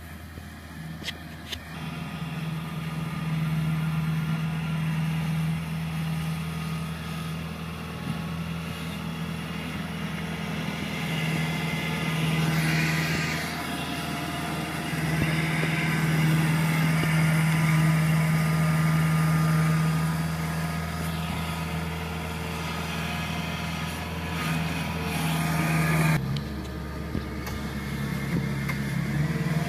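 Kubota combine harvester's engine running with a steady hum, growing louder about two seconds in and changing abruptly near the end.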